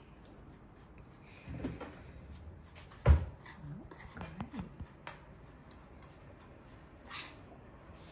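Metal spoon stirring and scraping a dry spice rub in a metal bowl, with scattered light clinks. A single heavy thump about three seconds in.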